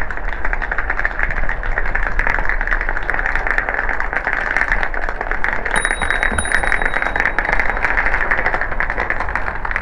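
Wheels rolling over brick paving: a continuous dense rattle of fine clicks. A thin high ring sounds for about two seconds, starting about six seconds in.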